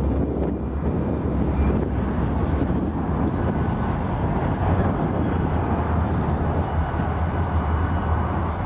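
Heavy wind noise on the microphone over a Union Pacific EMD GP40-type "geep" diesel locomotive rolling slowly past, its engine running steadily underneath. A faint high whine comes in a few seconds in.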